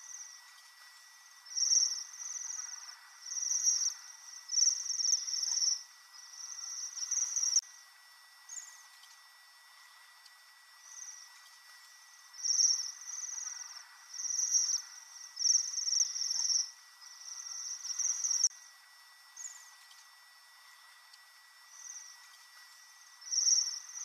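Waxwings calling, Bohemian waxwings among them: high-pitched calls of about a second each, several in quick succession in two runs, with single short calls between.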